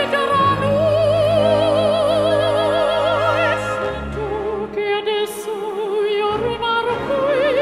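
Operatic soprano singing long held notes with wide vibrato over a sustained orchestral accompaniment.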